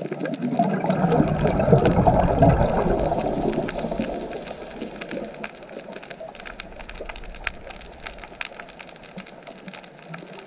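Underwater sound on a reef: a rush of bubbles from a scuba diver's exhale swells about half a second in and fades away by about four seconds. Under it runs a steady crackle of sharp clicks, the crackle of snapping shrimp.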